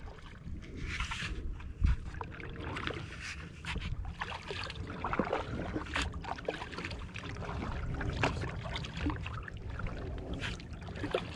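Kayak being paddled: water splashing and trickling off the paddle blades, with small knocks on the plastic hull over a steady low wind rumble on the microphone. A sharp knock about two seconds in is the loudest sound.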